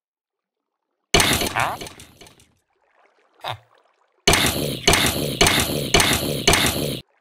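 Sound effects laid on a stop-motion animation. A sudden loud hit about a second in dies away over about a second, and a short blip follows near the middle. Then come five identical clattering mechanical hits, about two a second, which stop just before the end.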